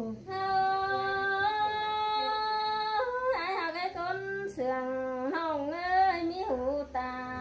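A single unaccompanied voice singing a Thái folk song. It holds two long, steady notes at the start, then moves into wavering, ornamented phrases and ends on a lower held note.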